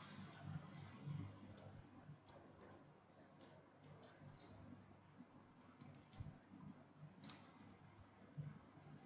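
Faint computer keyboard typing: scattered key clicks, some in quick runs of three or four, over a low hum.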